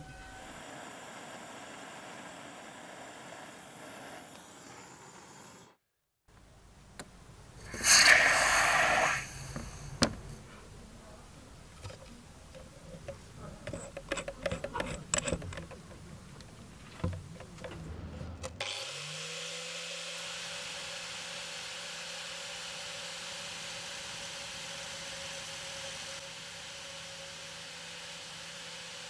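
Small clicks and knocks as a cast brass rod is fitted into a keyed drill chuck, with a loud, short rasping burst about eight seconds in. Then an electric motor starts and runs steadily with a thin high whine, as a red sanding disc spins against the brass rod held in the drill chuck.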